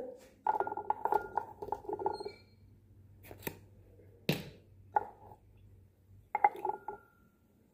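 Handling noises on a lab bench: a rapid crackle for about two seconds, then a few separate clicks and knocks of a plastic reagent bottle and a glass beaker being set down and picked up, the sharpest knock about four seconds in.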